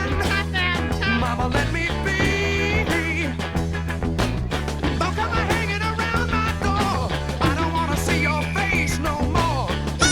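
Upbeat music with a singing voice over a steady bass line.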